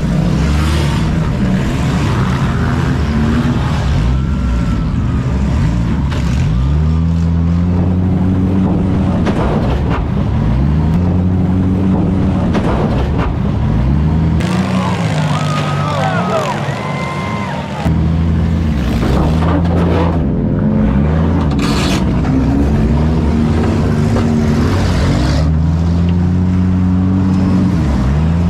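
Demolition derby car engines revving up and falling back over and over as the cars back up and ram, with the thuds of metal-on-metal hits mixed in.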